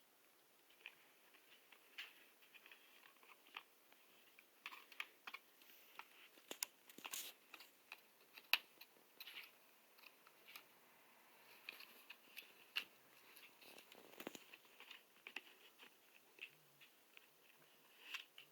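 Siberian husky gnawing a pork-hide chew: irregular crunching and clicking bites, at times several in quick succession, the loudest crunch near the middle.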